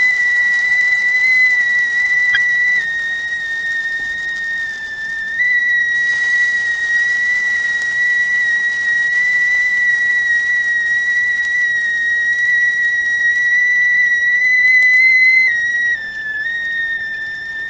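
Stovetop tea kettle whistling at the boil: one loud, steady high whistle that jumps slightly in pitch about five seconds in and drops again near the end, over a faint hiss of steam.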